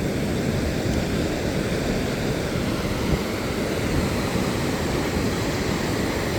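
Steady rushing noise of ocean surf and wind on the beach, with no distinct events.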